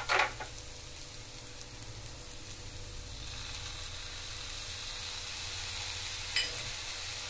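Egg noodles and vegetables sizzling in a nonstick frying pan, a steady hiss that grows a little louder about three seconds in as soy sauce is poured onto the hot noodles. There is one short tap near the end.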